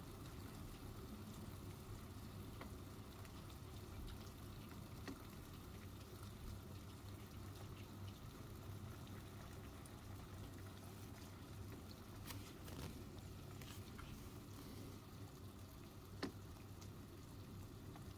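Faint rain falling and dripping outside, with scattered drip ticks and one sharper tap about sixteen seconds in, over a low steady hum.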